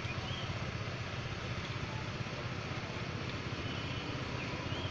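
A steady low engine drone with a fast, even pulse, and two faint short high chirps, one near the start and one near the end.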